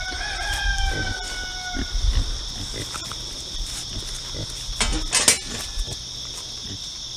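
Pigs grunting and rooting about in their pen, with a noisy scuffle about five seconds in, under the steady chirring of crickets. A long, slightly falling call sounds in the first two seconds.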